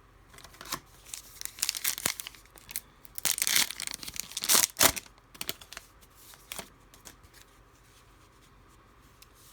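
A trading-card pack wrapper being torn open and crinkled in the hands, a run of crackling that is loudest about four to five seconds in, followed by a few light clicks as the cards are handled.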